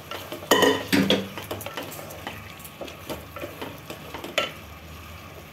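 Wooden spatula stirring mutton in tomato masala in an aluminium pot, scraping and knocking against the metal, loudest about half a second and a second in, with a soft sizzle of the masala frying underneath: the meat is being bhuna-fried.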